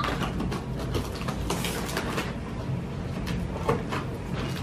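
Scattered rustles, clicks and light knocks from a parcel being unpacked and handled, over a steady low hum.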